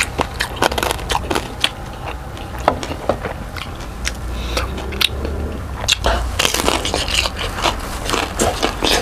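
Close-miked eating sounds: mouth clicks and chewing, then a bite into a piece of crispy deep-fried pork belly (lechon kawali) with a burst of crunching crackle about six seconds in.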